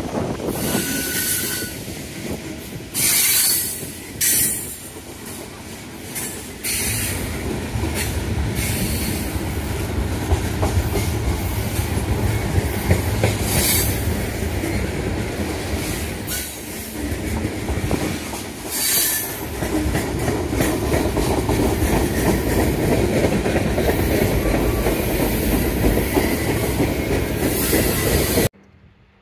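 Freight train rolling past, open-top freight cars and then tank cars, with a steady low rumble of wheels on rail, clickety-clack over the rail joints and repeated short bursts of high wheel squeal. The sound cuts off suddenly near the end.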